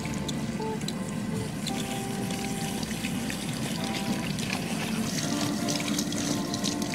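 Water running steadily from a shampoo-basin tap or sprayer as hair is rinsed, with soft music playing underneath.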